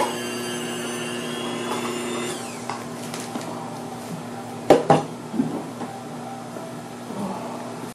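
Small electric motor of a kitchen appliance humming steadily, then spinning down with a falling pitch about two and a half seconds in. Two sharp clicks come close together a couple of seconds later, followed by a few softer knocks.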